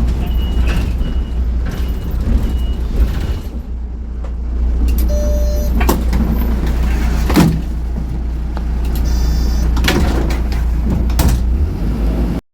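Small city bus's engine running steadily, with a high warning beep repeating in the first second or so, then a short chime and several clunks from the bus's door mechanism.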